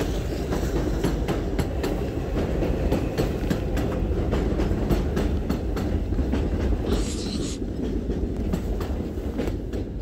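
Elevated subway train running on the overhead tracks: a steady rumble with a rapid run of clacks from the wheels over the rail joints, and a short hiss about seven seconds in.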